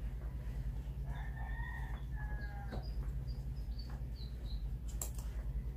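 A rooster crowing once, a drawn-out call in two parts about a second in, followed by small birds chirping. A steady low hum runs underneath, and there is a sharp click near the end.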